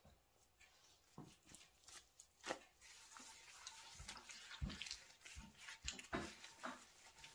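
Faint rubbing and scrubbing of a cloth and gloved hands working polish over a bare aluminium scooter crankcase, with scattered light taps and knocks as the part shifts on the rag.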